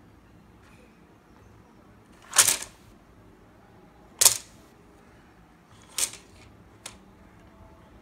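Plastic interlocking building pieces sliding out of a toy dump truck's tipped bed and clattering onto a wooden tabletop. There are four clatters, the first two loudest and a last small click near the end.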